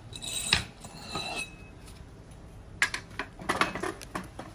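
Clicks, knocks and a ringing metallic clink from a Makita LS1012 sliding compound miter saw being set up by hand: the saw head tilted over to its 45-degree bevel and a wooden axe handle set against the fence and table. The clink comes right at the start; a quick run of knocks follows near the end.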